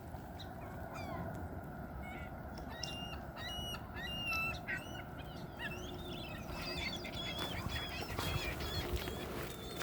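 Waterfowl calling, many short honking calls from several birds that begin about three seconds in and come thick and fast through the rest of the stretch.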